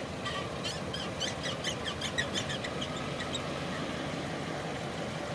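Rapid squeaking, about six short high squeaks a second, from the shifter boot of a 1992 Camaro RS's 5-speed manual transmission as the clutch is let out in first gear, over the idling 305 V8. The squeaking stops about three and a half seconds in.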